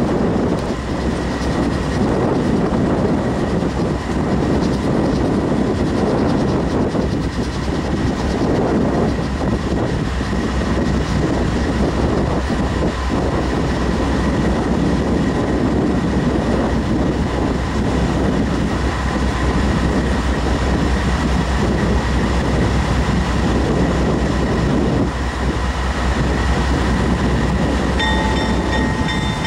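CSX GE CW44AH diesel-electric locomotive running with a loud, steady rumble. Near the end a high ringing tone sets in over it.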